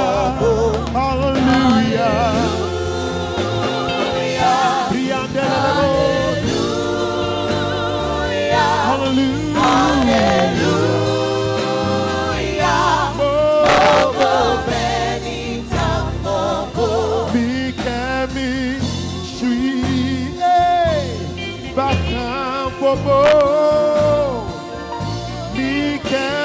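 Male lead vocalist singing a gospel song live over a band, holding long notes with vibrato.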